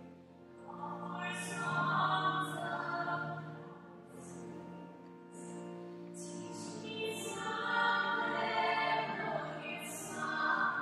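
Classical, operatic-style singing with accompaniment, long sung phrases swelling louder about two seconds in and again around eight seconds in.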